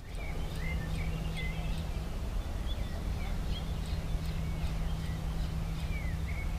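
Birds chirping: short rising and falling calls, about two a second, over a steady low rumble.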